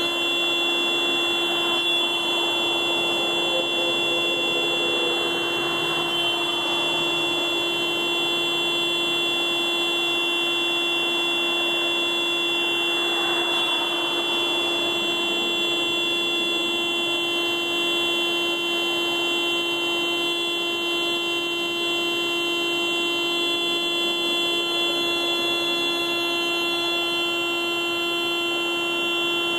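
Car alarm sounding one steady, unbroken horn-like tone at a constant level, without pauses.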